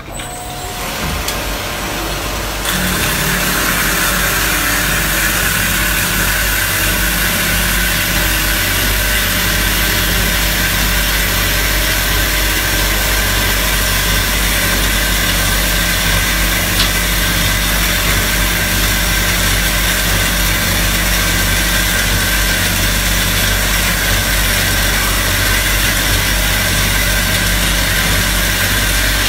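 İZTES 220 high-speed band saw cutting through a solid round metal bar: a steady low machine hum. About two and a half seconds in, the sound steps up as a steady high cutting hiss from the blade in the bar joins it, and it then holds even.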